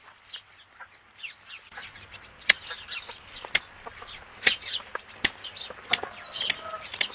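Many small birds chirping, with dense, overlapping short calls that slide downward in pitch, mixed with scattered sharp clicks. The calls grow busier and louder about two seconds in.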